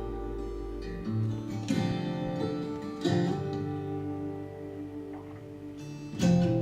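Guitar music played back through a loudspeaker driven by a Class D power amp module, with new chords struck about every one to three seconds and a softer stretch before a louder strum near the end.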